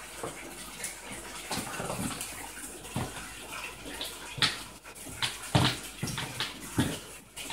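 Water splashing in irregular bursts, loudest about halfway through.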